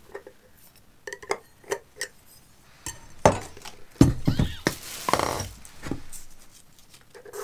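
A metal kitchen knife clicking and scraping against the plastic drainage plug in the base of a self-watering plant pot as it is prised at. A run of light taps comes first, then a louder stretch of knocks and scraping in the middle.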